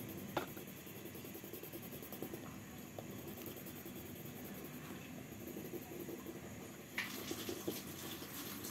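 Faint scratching of a coloured pencil shading on paper, with a click about half a second in and busier, louder scratching near the end.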